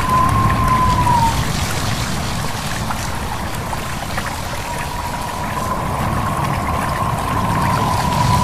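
Stream water babbling under steady wind, with a high, wavering whistle that fades out about a second in and comes back around the middle.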